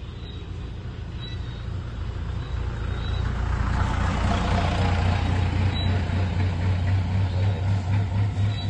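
A motor vehicle's engine drawing near, growing louder until about halfway, then running on close by with a steady low hum.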